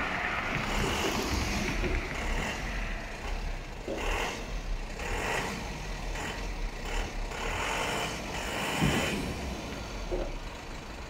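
Isuzu light truck's diesel engine running at low revs as the truck backs slowly into a shipping container.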